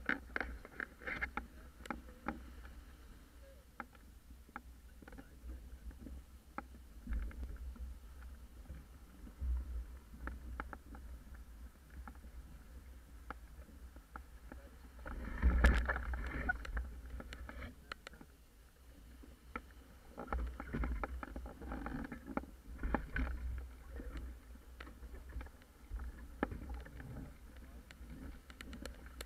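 Low wind rumble on the microphone of a camera mounted on a Paper Tiger catamaran, with scattered clicks and taps from the boat's rigging being handled and one louder knock about halfway through.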